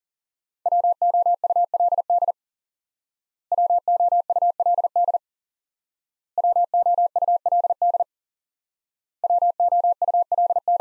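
Morse code for the word "WOULD" sent four times at 40 wpm: a single steady tone keyed on and off in fast dots and dashes, in four groups separated by pauses of about a second.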